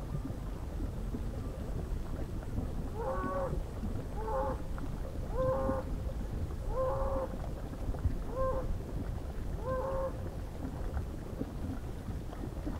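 An animal calling six times at an even pace, each a short call on one steady pitch, over a steady low rumble.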